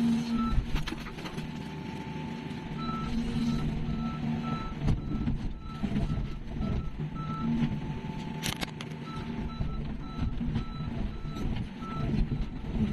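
Heavy construction machine's back-up alarm beeping steadily over its running diesel engine, starting about three seconds in, pausing briefly and starting again. A single sharp bang about eight and a half seconds in.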